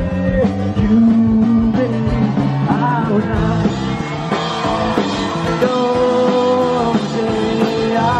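Rock music with guitar and long held notes.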